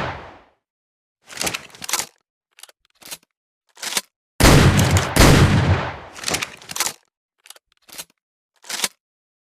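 Double-barrel shotgun sound effect: a shot's fading echo, then several short mechanical clicks and clacks of the gun's action, one loud shot about four and a half seconds in with a long decaying tail, and a few more clicks near the end.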